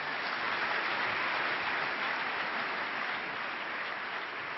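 Large audience applauding: dense, even clapping that eases off near the end.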